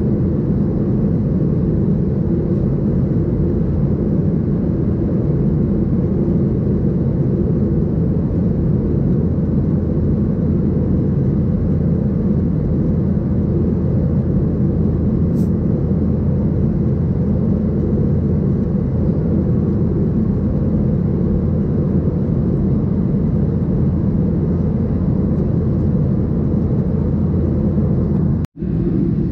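Steady low cabin roar inside a Boeing 737-700 in flight, the airflow and CFM56-7B engine noise heard from a window seat. The sound drops out for an instant near the end.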